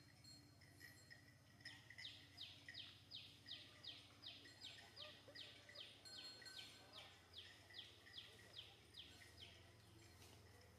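A bird calling faintly: a run of quick falling notes, about three a second, starting about two seconds in and stopping shortly before the end.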